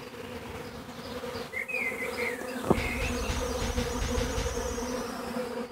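Bees buzzing in a steady drone, with a few short chirps and a quick rising swish about halfway through, then a high fluttering tone over the second half.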